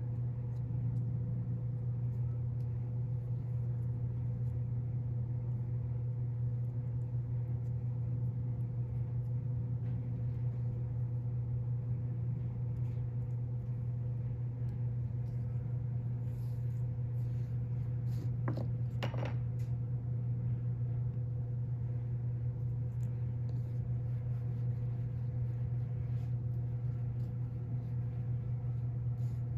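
A steady low mechanical hum, with faint scattered ticks and two short higher-pitched sounds about two-thirds of the way in.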